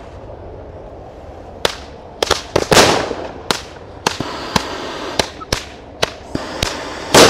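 Small firecrackers going off in rapid succession: about a dozen sharp bangs at uneven spacing, starting a little under two seconds in, with the loudest near the end.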